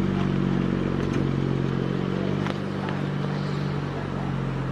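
A BMW 335i's N54 twin-turbo inline-six running at low revs through its exhaust as the car crawls forward: a steady low drone that drops a little in level about two and a half seconds in.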